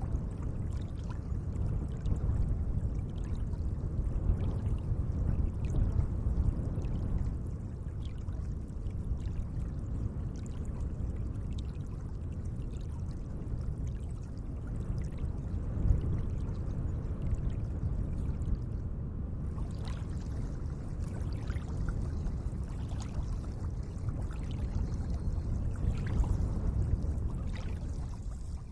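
Gentle lake water lapping and sloshing: a steady low wash with many small splashes and drips.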